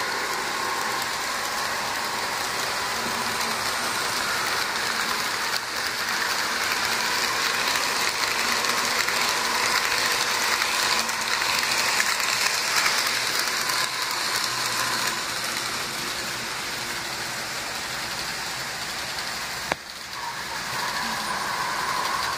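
HO scale model trains running on the layout: a steady whir and clatter of the motors and the wheels on the track, louder for a few seconds midway as a freight train passes close. A single sharp click comes near the end.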